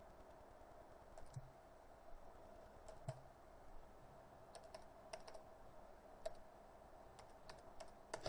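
Faint, unhurried keystrokes on a computer keyboard, about a dozen separate clicks at uneven intervals, over a low steady hum.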